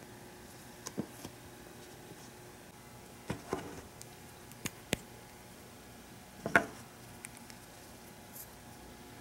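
Hard plastic figure parts and clear plastic stand pieces clicking and tapping as they are handled and set on a table: a handful of separate small clicks, a few of them in quick runs, the loudest about six and a half seconds in.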